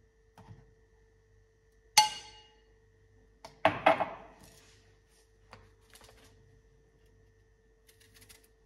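A wooden spoon knocks once against a stemless wine glass, which rings briefly, about two seconds in. About a second and a half later comes a louder cluster of clinks and knocks as the glass is set down and handled on the kitchen counter, followed by a few faint clicks.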